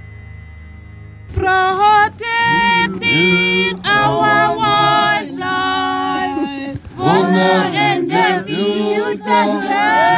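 A group of voices singing together a cappella in harmony, starting suddenly about a second in after a low, dark instrumental drone.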